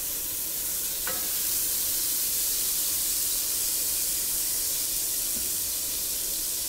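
Butter sizzling as it melts in a hot saucepan, a steady hiss, with a short metallic clink about a second in.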